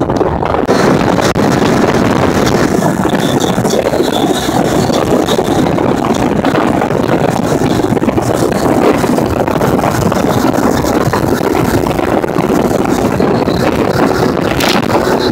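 Motorboat running underway, a steady, dense drone of engine and water noise, with wind buffeting the microphone.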